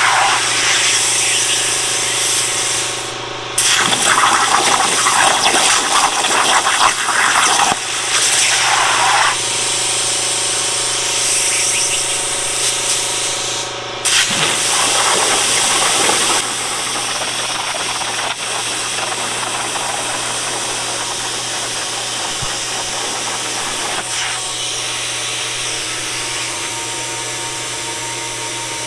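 CNC plasma table's torch cutting steel plate over a water table: a loud, steady hiss of the plasma arc over a constant hum, with water splashing under the cut. The sound breaks off briefly and comes back a few times, and it runs somewhat quieter in the second half.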